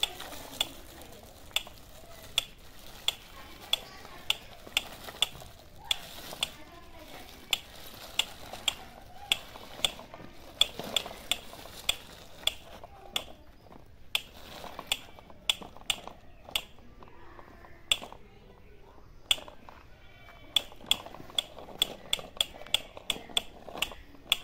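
A plastic toy tractor pulled on a string over stony dirt, giving sharp ratchet-like clicks at about one to two a second.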